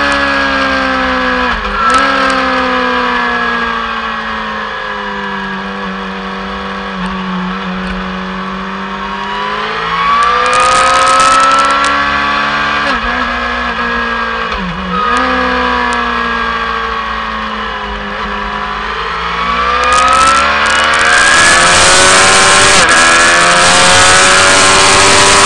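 Sport motorcycle engine heard from a camera mounted on the bike at speed, its pitch falling for several seconds, rising, falling again, then climbing hard near the end, with a few brief sharp dips in pitch along the way. Wind rushes over the microphone, loudest in the last few seconds as the bike speeds up.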